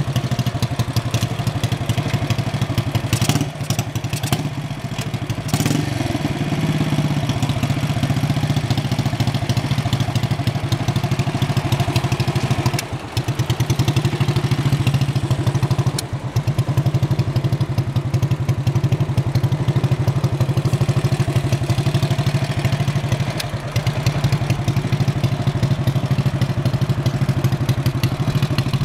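1968 Harley-Davidson Sprint's horizontal single-cylinder four-stroke engine idling, a fast, even train of exhaust beats at a steady pitch. The level dips briefly a few times, around 3, 13, 16 and 23 seconds in.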